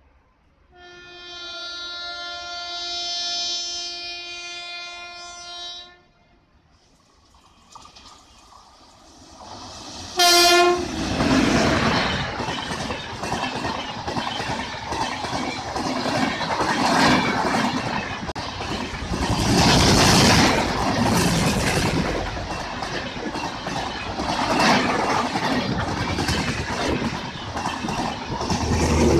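An Indian locomotive's air horn sounds one long multi-tone blast of about five seconds. After a pause comes a rising rumble as the train approaches, then one short horn toot about ten seconds in. Then the loud rush and clatter of an express train of LHB coaches passing at speed.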